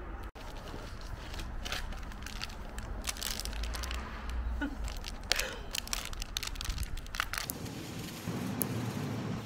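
Thin plastic marshmallow bag crinkling and crackling as marshmallows are pulled out of it. About seven and a half seconds in, this gives way to the steady hiss of a butane torch lighter's flame.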